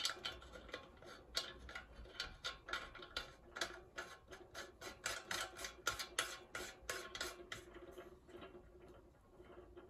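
Filler cap being screwed by hand onto a Coleman petrol lantern's fuel tank just after filling: a run of quick small clicks and scrapes from the cap turning on its threads, several a second, that dies away near the end.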